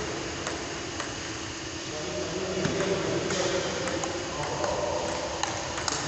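Table tennis rally: a celluloid-type ball clicking sharply off the paddles and bouncing on the table, about once or twice a second, in a reverberant hall with a background murmur of voices.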